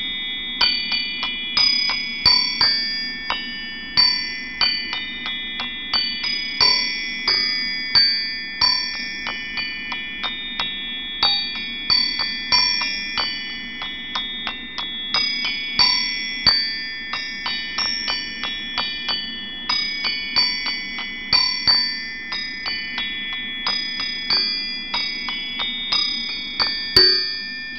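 Bright, bell-like metal notes struck one after another at an unhurried, irregular pace, each ringing on under the next, like chimes or a glockenspiel.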